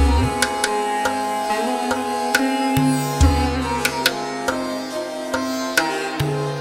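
Indian instrumental background music: a plucked string melody over a steady drone, with hand-drum strokes.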